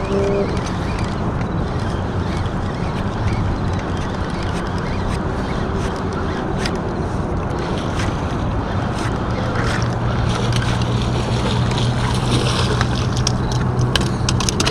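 Steady wind and water noise with the low hum of a motorboat engine, which grows louder about nine seconds in. Near the end comes a quick run of sharp clicks and taps.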